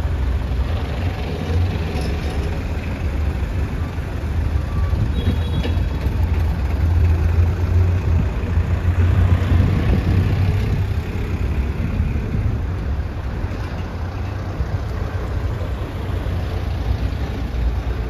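Engines of a slow line of trucks and minibuses driving past at low speed, a steady low rumble that swells somewhat around the middle.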